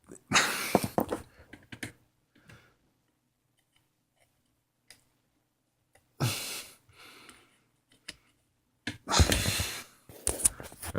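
Short bursts of handling noise and light clicks as a SATA data cable is worked onto a hard drive's connector: once near the start, again around the middle, and twice near the end, with quiet stretches between.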